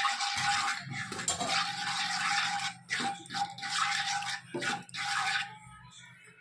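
Ground spices sizzling in hot oil in a nonstick kadai as a spoon stirs them, the sizzle swelling and breaking with each stroke; it dies away near the end.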